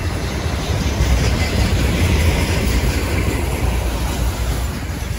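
A train running past on the line: a loud, steady rumble of wheels on rails, deepest and strongest at the bottom.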